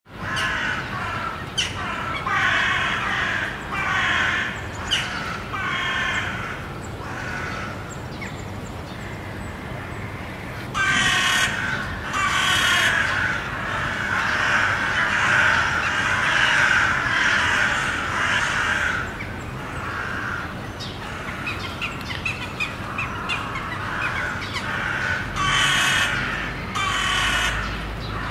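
A flock of crows cawing, many harsh calls overlapping, thickening into a dense chorus about halfway through before thinning to scattered calls.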